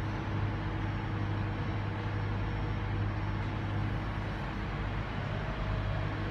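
Steady low hum and rumble of railway station platform ambience, with no distinct events.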